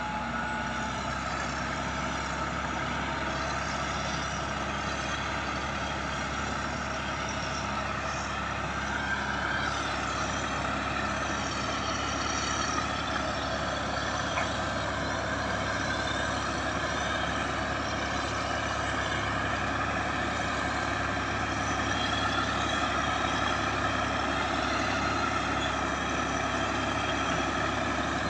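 Caterpillar D6H crawler bulldozer's diesel engine running steadily as the dozer works, leveling soil. The engine and machine noise stay at an even level throughout.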